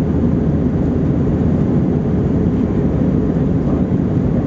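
Airbus A321-231 cabin noise in flight: the steady low roar of its IAE V2500 turbofan engines and the airflow over the fuselage, heard from inside the cabin.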